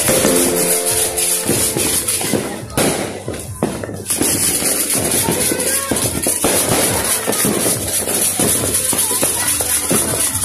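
Dense crackling of firecrackers and fireworks going off in quick succession, with music playing; held musical tones are clear in the first second or so, then the crackling dominates.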